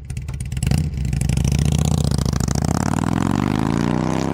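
Motorcycle engine running with a fast pulsing beat, then revving up in a slow, steady rise in pitch from about two seconds in.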